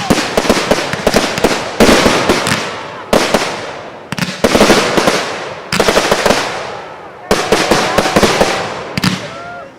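Fireworks display: a string of about seven loud bursts, roughly one every second and a half, each bang followed by a crackling tail that fades before the next.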